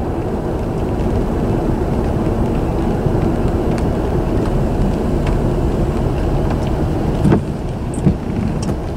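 Steady low rumble heard from inside a car, with two short knocks near the end as the camera is handled.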